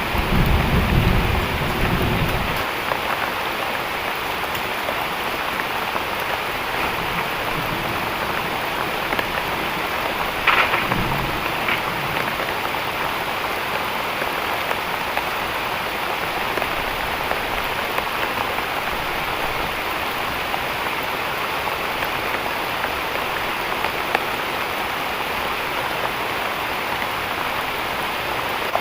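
Heavy rain falling steadily. A low rumble sounds in the first couple of seconds, and a single brief knock comes about ten seconds in.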